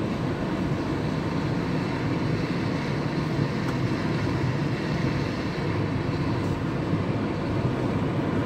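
Steady road noise inside a moving car's cabin: tyres and engine at cruising speed, even and unbroken.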